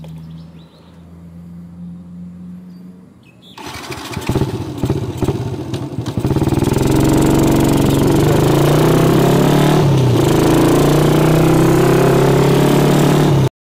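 Yamaha LC135 single-cylinder four-stroke moped engine, fitted with a cutting-standard aftermarket exhaust. It idles with a steady hum, is blipped unevenly from about three and a half seconds in as it pulls away, and from about six seconds runs loud and steady under load while riding. The sound cuts off abruptly near the end.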